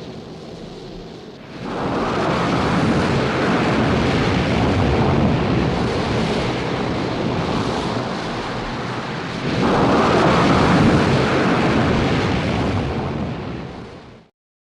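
Film sound effect of a storm wind: a loud, steady rushing noise that jumps louder about a second and a half in and again later on, then cuts off suddenly just before the end.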